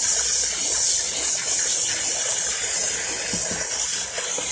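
Steady rushing hiss like running water at a pedicure station, with faint rustling of hands working over a wet, plastic-wrapped foot.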